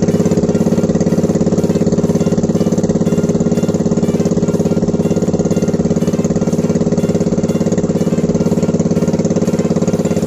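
Small fishing boat's engine running steadily with a fast, even beat, loud and close; it starts and cuts off abruptly.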